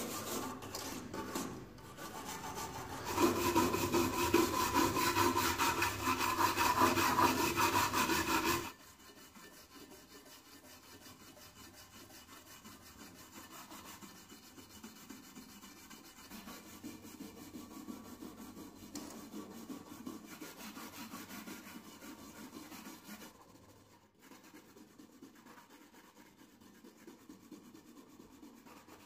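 Stiff red bristle brush scrubbing dirt and corrosion off an antique brass bed warmer's lid and handle in quick back-and-forth strokes. It is loudest from about three to nine seconds in, then much quieter.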